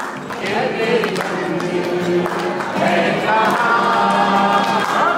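A group of men and women singing a Hindi song together to a strummed acoustic guitar, with hand claps.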